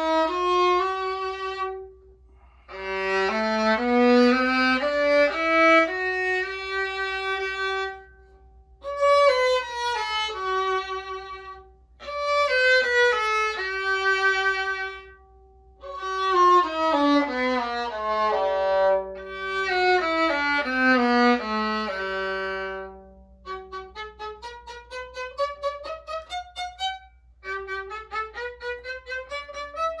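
Two violins of the same model, one of them the Tabolin, an experimental violin with drum-skin panels set into its body, played in turn in short bowed phrases of rising and falling scales with brief breaks between them. Near the end come climbing runs of short detached notes. To the players the two instruments sound much the same.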